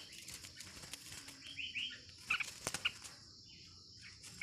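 Red-whiskered bulbul fluttering and hopping in its cage, wings flapping against the perch and bars, with a few short chirps about halfway through. A steady insect buzz runs behind.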